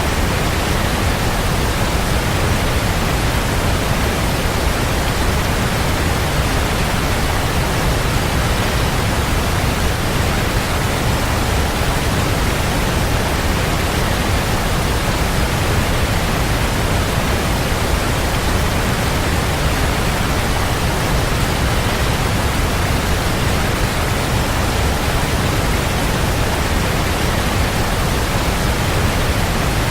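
Waterfall, water falling and splashing in a steady, dense rush with a strong low rumble.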